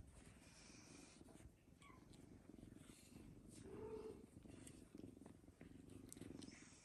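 Faint, steady purring of snow Bengal kittens being petted.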